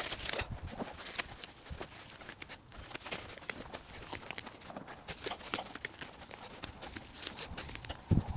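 Irregular scraping, rustling and soft knocks of weeding a soil bed, with a louder thump near the end.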